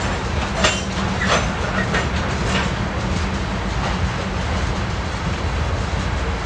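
Freight train of covered hopper cars rolling past: a steady rumble of wheels on rail, with a run of sharp clacks about every half second in the first few seconds as wheels cross a rail joint.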